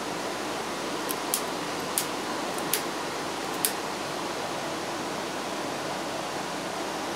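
Rack-mounted power-distribution circuit switches flicked on one after another: five short sharp clicks within the first four seconds, over a steady hiss.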